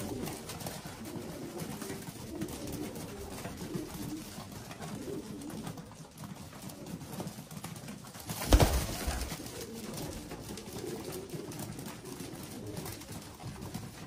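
Racing pigeons cooing while they peck feed off a loft floor, with a patter of fine beak taps. A brief loud thump and rustle comes a little past halfway.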